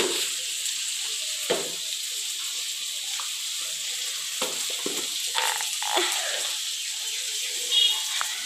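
Chicken and tomato frying in oil under the lid of a metal kadai on a gas burner: a steady sizzle, with a few light knocks as containers are handled.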